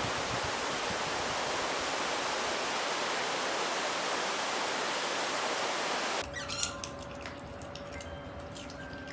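A steady rushing noise, even and hiss-like, that cuts off sharply about six seconds in. Quieter scattered clicks and a faint steady tone follow.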